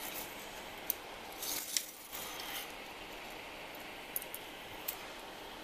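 Soldering resistors onto a circuit board: a few light metallic clicks as the soldering iron tip and solder touch the resistor leads, and a short hiss about one and a half seconds in as the flux burns. Under it runs the steady whoosh of a small fume fan.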